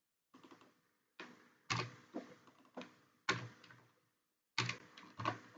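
Computer keyboard keys pressed one at a time: about nine separate clacks, spaced irregularly.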